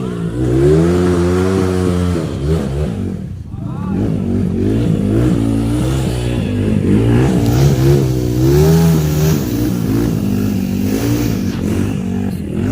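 Trail motorcycle engines revving, their pitch repeatedly rising and falling, with more than one engine running at once.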